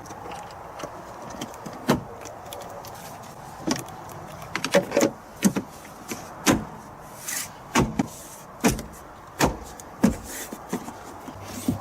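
About ten sharp knocks and taps at uneven intervals, as the car's plastic interior trim and rubber seals are pushed and tapped back into place.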